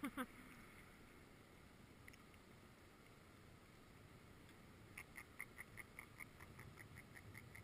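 Mostly near silence, then from about five seconds in a faint run of quick, evenly spaced ticks, about five a second.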